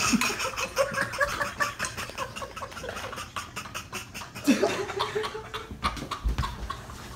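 People laughing and snickering in a small room, in rapid choppy bursts, with another long laugh about four and a half seconds in.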